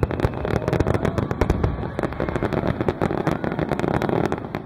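Aerial fireworks shells bursting in a rapid barrage, many overlapping bangs and cracks with no gap between them, thinning slightly near the end.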